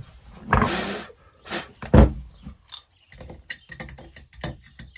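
Dust being blown out of the opened belt sander housing in a short puff, a hard knock about two seconds in, then a run of small taps and clicks as the sander is handled.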